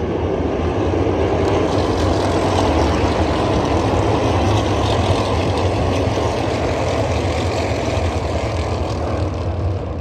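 NASCAR Cup Series stock cars' V8 engines running on the track in a pack, a loud, dense, continuous engine noise that swells slightly in the middle.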